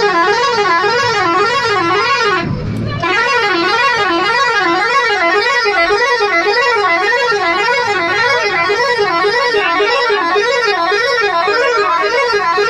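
Bus air horn blown continuously in a warbling tone, its pitch rising and falling about twice a second. It breaks off briefly about two and a half seconds in, then resumes.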